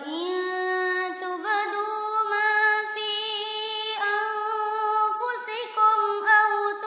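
A single voice chanting Quran recitation in a slow, melodic style, holding long notes that shift in pitch between phrases.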